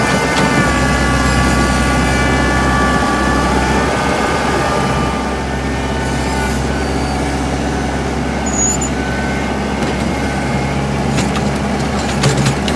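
Compact tractor engine running steadily under load while working a front-end loader, with a high whine over it in the first half that fades away. A few sharp clanks near the end.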